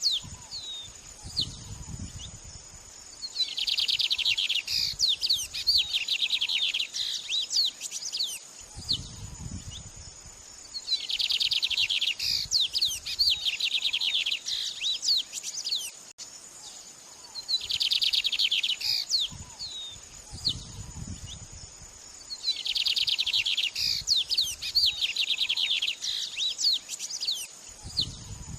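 Murai (white-rumped shama) singing in repeated phrases, each a dense buzzy trill of about a second and a half followed by a run of quick sweeping whistled notes, the phrase coming back every several seconds. A steady high insect-like whine runs underneath, with a low rumble under a few of the phrases.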